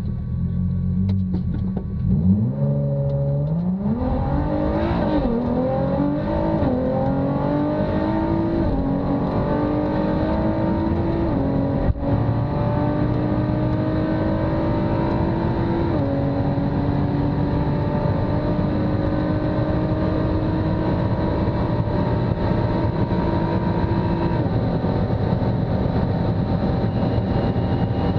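2019 Ford GT's twin-turbo V6 launching from a standstill and accelerating flat out through the gears, heard from on board. The engine pitch climbs and drops at each upshift, with quick shifts in the first few seconds and longer pulls later. The last gear winds slowly upward with wind noise at high speed.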